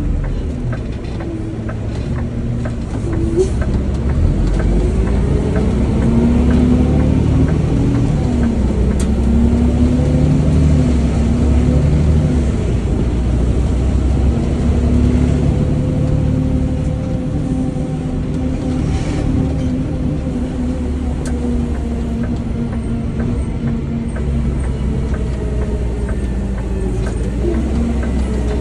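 Garbage truck engine running on the move, its note rising and falling as it speeds up and slows. It grows louder about three seconds in.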